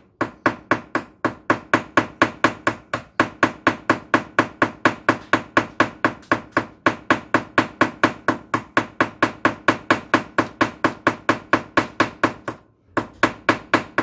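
Ball peen hammer striking a chainsaw chain's rivet on a steel block in a fast, even run of taps, about four or five a second, peening the rivet head over to join the chain. A brief pause near the end, then a few more taps.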